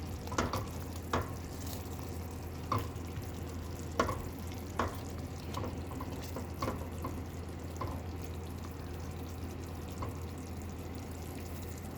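Spoon stirring chicken in a pan, knocking and scraping against the pan about ten times at irregular intervals, over a faint sizzle as the last of the cooking water dries off. A steady low hum runs underneath.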